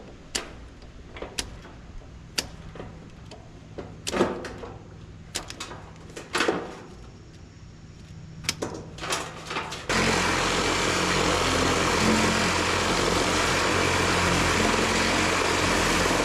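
Scattered metallic clanks and knocks as a clothes dryer is dismantled. About ten seconds in, a loud, steady machine noise starts and runs without a break.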